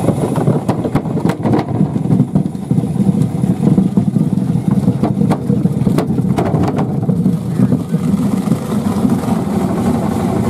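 Homemade apple scratter's drive motor running steadily, with apples knocking against the wooden hopper several times. The drive belt is loose and slipping, so the oak grinding drum is not biting into the apples.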